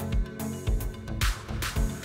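Background music with a steady beat, a hissing swell rising and falling partway through.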